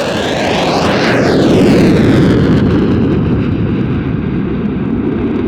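Saab JAS-39C Gripen's single Volvo RM12 turbofan as the jet makes a low pass: the jet noise builds to its loudest about two seconds in with a sweeping change in pitch, then eases off a little and runs on.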